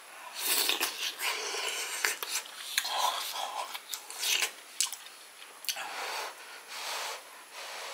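A person blowing on a hot dumpling held on a spoon to cool it: several breathy puffs a second or so apart, with mouth noises between them.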